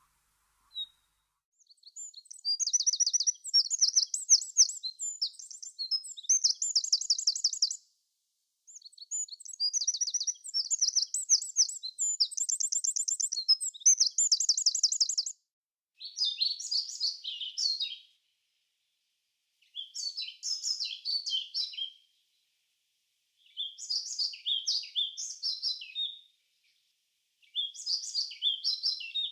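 Songbirds singing: two long, rapid high trilled phrases, then four shorter phrases about two seconds each, repeated every few seconds with clean silence between them.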